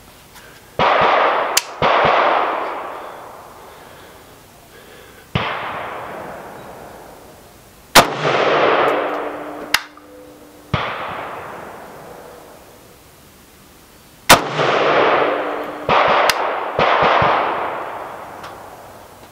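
Single shots from a Zastava ZPAP M70 AK-pattern rifle in 7.62×39, fired one at a time at an irregular pace. Each sharp crack trails off in a long echo.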